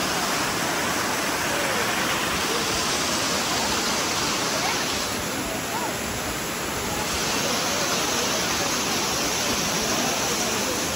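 Large waterfall pouring down onto rocks, a steady dense rush of falling water.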